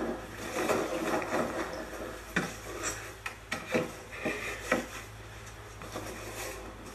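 Wooden bed slats being handled: rubbing and scraping at first, then several sharp wooden knocks as they clatter against each other and the bed frame.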